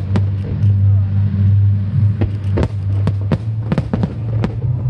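Fireworks shells bursting in about half a dozen sharp bangs, most of them in the second half, over music with a deep, steady bass line.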